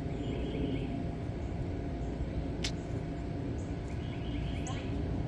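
A steady low rumble with birds chirping in short runs of notes near the start and again about four seconds in, and a sharp click partway through.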